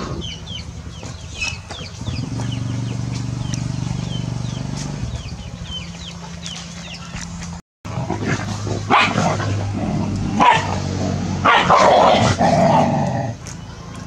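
A dog barking several times, the loudest barks in the second half. Earlier there are repeated high chirps over a low steady hum.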